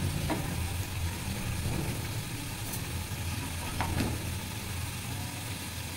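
A steady low hum, with the faint dry sizzle of a stuffed paratha cooking on a hot iron tawa before any ghee is added, and a couple of soft taps.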